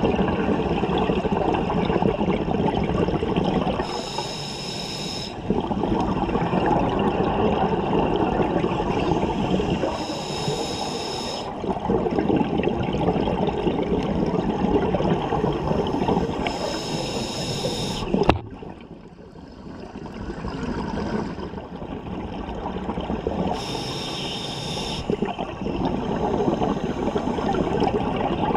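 Scuba diver breathing through a regulator underwater: four short hissing inhalations, about six seconds apart, with bubbling exhalations between them. A sharp click about two-thirds of the way through, followed by a few quieter seconds.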